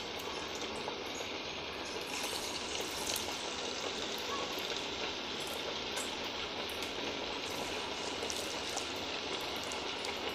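Hot oil sizzling steadily in a frying pan as flattened patties of ragi (finger-millet) dough deep-fry, with a few faint crackles.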